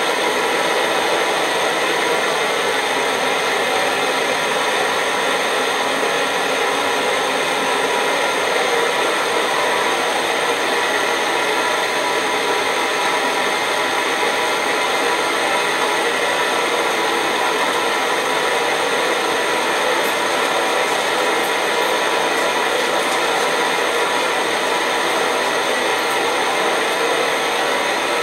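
Optimus 111 pressurised paraffin stove's roarer burner running steadily: an even, unbroken rush of burner noise that holds the same level throughout.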